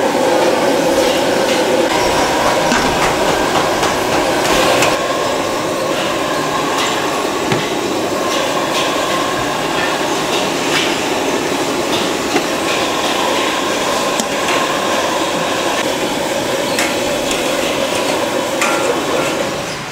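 Hawker-stall cooking clatter: many quick clanks and clinks of metal utensils over a steady loud rushing noise.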